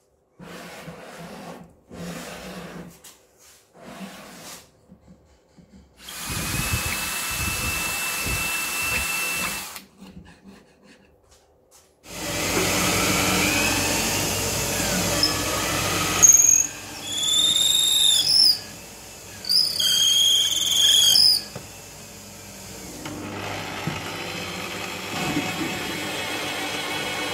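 A few knocks as plywood parts are fitted, then a drill press boring into a plywood block, the bit squealing several times in short high cries. Near the end the drill press runs at a lower, steady level, turning an M12 tap into the hole.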